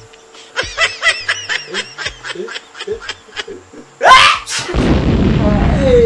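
A man's voice in a rapid string of short, repeated syllables. About four seconds in, a loud added sound effect: a sudden rising whoosh turning into a rumbling boom, with a tone that falls away over about two seconds.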